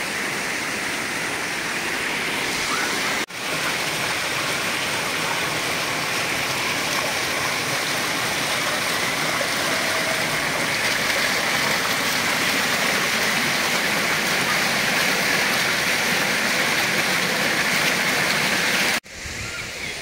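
Small fountain jets bubbling up and splashing steadily into a tiled basin, a close, even rush of water. It breaks off for an instant about three seconds in and drops away suddenly near the end.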